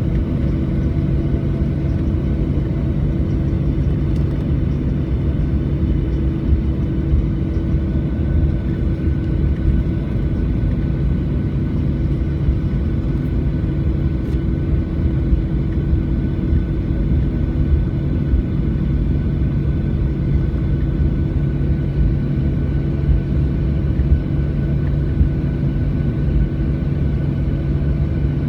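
Airplane engine drone: a steady low rumble with a constant hum that holds the same level throughout.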